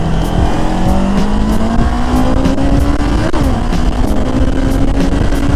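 Bristol Venturi 500 motorcycle engine pulling under acceleration in safe mode, its pitch climbing steadily, with a short break about three seconds in as the rider shifts gear, over wind rush on the microphone.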